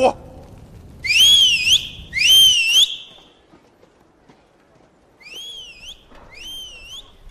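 A man whistling two loud, high, swooping calls, each dipping and rising before it holds, given as a supposed celebratory call that is a coded signal. From about five seconds in, fainter whistles of the same shape answer, repeated about once a second.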